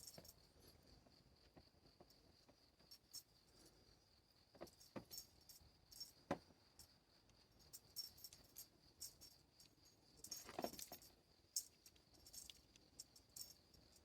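Faint, scattered jingling and rattling of a small cat toy at irregular moments, over a steady high chirring of insects.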